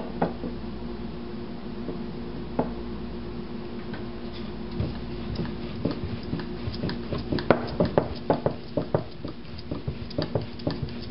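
Rolling pin knocking and clacking irregularly on a wooden board as dough is rolled out thin. The knocks start about four seconds in and come thick and fast in the second half.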